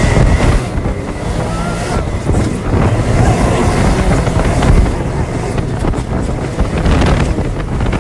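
Can-Am side-by-side driving along a dirt trail: engine and tyre rumble from the moving machine, with heavy wind buffeting the microphone in the open cab.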